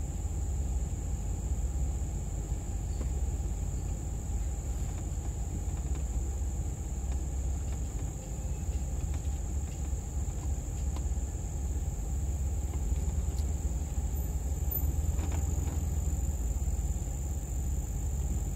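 A 4x4 engine and drivetrain rumbling low and steady as the vehicle creeps down a rutted dirt trail, with a few faint knocks. Insects drone steadily at a high pitch over it.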